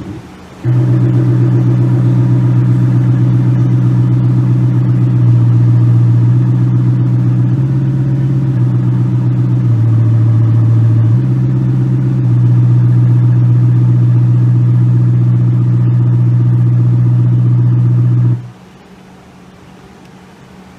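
AlphaX electronic engine-sound simulator playing a synthetic sports-car engine note through its sound generator: a steady low engine drone that steps slightly up and down in pitch a few times. It starts abruptly about half a second in and cuts off suddenly a couple of seconds before the end.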